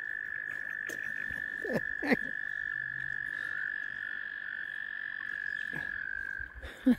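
A male American toad giving its long, steady, high breeding trill, which stops about half a second before the end. Two short downward-gliding calls cut in about two seconds in.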